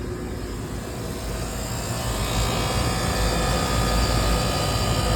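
Carrier rooftop unit's newly replaced compressor starting up and running with a steady low hum that builds over the first couple of seconds and then holds. It is on its first run after the swap, still short of refrigerant.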